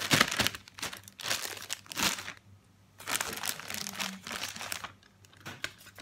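Clear zip-top plastic bags crinkling and rustling as they are handled and filled with okra pods, in irregular bursts with a short pause a little over two seconds in.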